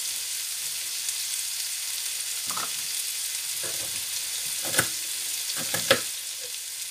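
Sliced onions sizzling steadily in oil in a frying pan, with a few short sharp knocks of a knife cutting celery stalks, the loudest about five and six seconds in.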